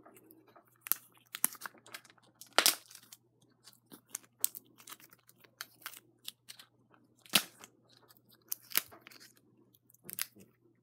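Hands working at a small plastic Shopkins Chef Club blind-pack canister and its wrapping, making irregular plastic clicks and crinkles. The sharpest clicks come about two and a half and seven seconds in.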